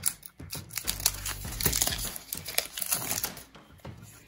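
Crinkling and rustling of a trading card pack and its cards being handled, a dense run of quick rustles and clicks that is busiest through the middle.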